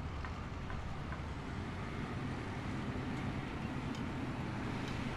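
Steady low rumble with a hiss over it and a few faint ticks.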